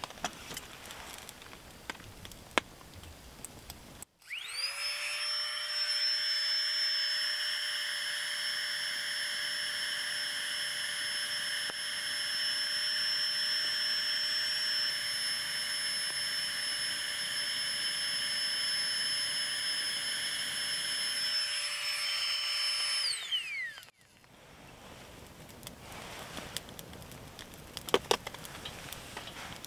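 Small handheld battery-powered blower fanning the kindling of a campfire. It spins up about four seconds in, runs steadily for about twenty seconds with a whine over rushing air, and winds down near the end. Scattered small crackles come before and after it.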